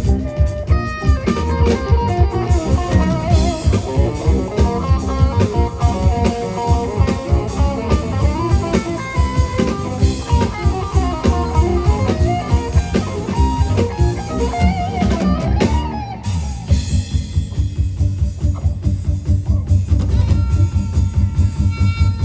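Music with guitar and a drum kit playing a steady beat; about sixteen seconds in it thins out into a sparser section.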